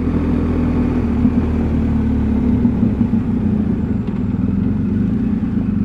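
BMW R1250 motorcycle's boxer-twin engine running steadily at low road speed, heard from on board the bike. Its low rumble eases off about halfway through.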